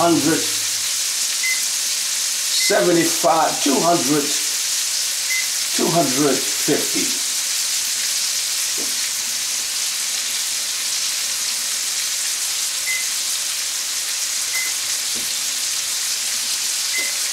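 Steaks searing in a large frying pan: a steady, even sizzle.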